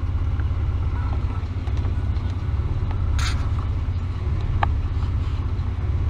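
1999 Ford Explorer's 4.0L SOHC V6 idling cold at about 660 rpm, heard from the cabin; it is running rough and lean, which the owner believes is a vacuum leak. A brief scraping noise comes about three seconds in.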